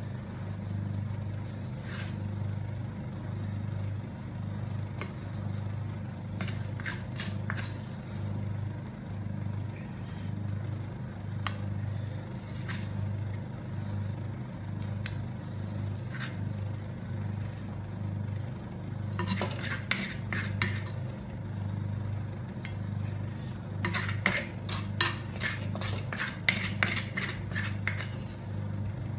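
A spoon scraping and tapping against a steel plate as masala is spread over fried sardines, with a few clicks early on and two quick runs of taps, one around the middle and one near the end. A steady low hum runs underneath.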